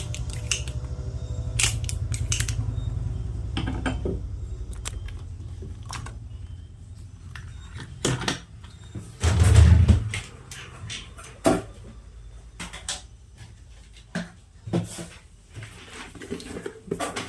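Tools and small parts being handled on a workbench: scattered clicks and taps, with one heavy thump about halfway through. A low hum runs under the first few seconds and then fades.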